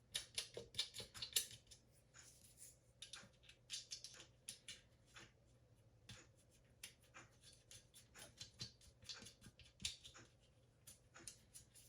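Faint, irregular small clicks and taps of bathroom exhaust fan motor parts being handled and fitted together by hand, several a second in clusters.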